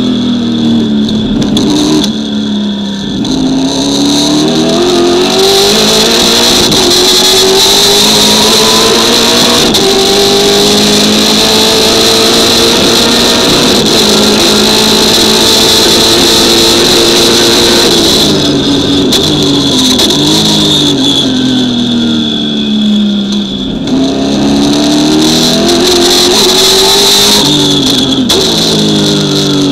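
Holden Commodore touring car's V8 engine at racing speed, heard from inside the cockpit. It revs hard and climbs in pitch down a straight and holds high revs, then drops in steps as it brakes and downshifts about eighteen seconds in, and accelerates again near the end. A steady high whine runs over the engine note.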